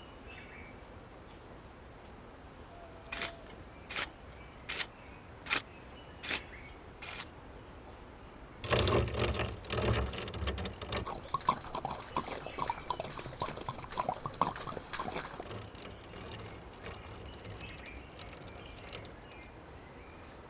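Six evenly spaced knocks, then water poured out for about seven seconds, splashing and trickling before it stops.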